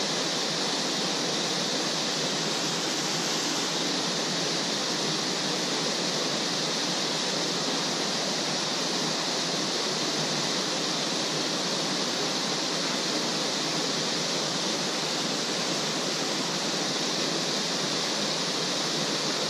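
Small waterfall spilling from a culvert outlet into a pool: a steady, even rush of falling water.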